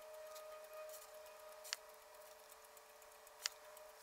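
Two short, sharp plastic clicks, about a second and a half apart, as the plastic cover of a Mercedes W126 power seat switch is pressed and worked into line on its housing.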